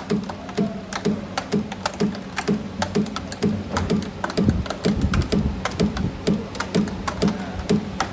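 CNC camless spring forming machine running at production speed, bending 1.6 mm wire into clip rings: a steady beat of low knocks about two to three a second under a dense run of sharp metallic clicks, over a steady motor hum.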